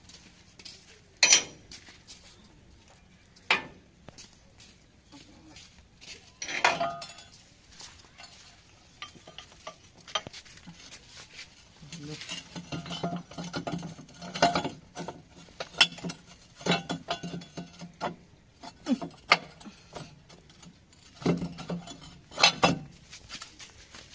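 Steel tractor hitch parts clanking and knocking as the rear drawbar bracket and pin are handled and fitted by hand. Single sharp clanks come about a second in, near 3.5 s and near 6.5 s. From about halfway a quicker run of knocks and rattles follows, then two more clanks near the end.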